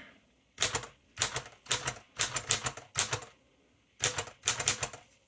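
Royal Deluxe manual typewriter being typed on: keys and typebars striking in about seven quick bursts of several strokes each, with short pauses between them.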